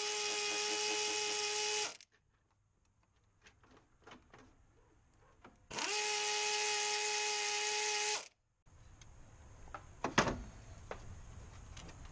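A handheld power driver runs in two steady whining bursts of about two and a half seconds each, a few seconds apart, backing out the fastener of a power steering line fitting. Light clicks and a knock of metal parts being handled follow near the end.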